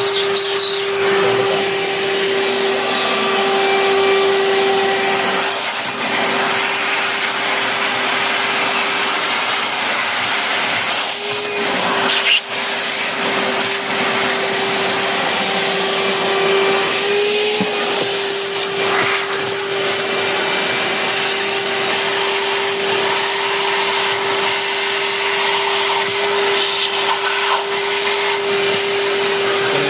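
Vacuum cleaner running steadily, sucking up loosened dirt so it cannot get into and clog the pump's strainer.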